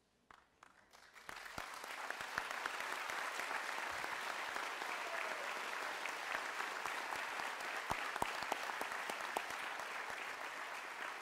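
Audience applause, starting about a second in and holding steady, a dense patter of many hands clapping.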